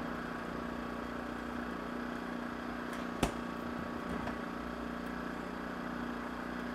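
Steady machine hum with a low, even drone, and one sharp click about three seconds in as a refrigerator door shuts.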